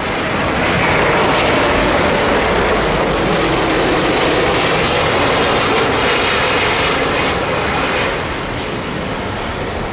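Airbus A330-900neo's Rolls-Royce Trent 7000 turbofans running loud and steady as the airliner passes low on final approach, easing off about eight seconds in as the main wheels touch down.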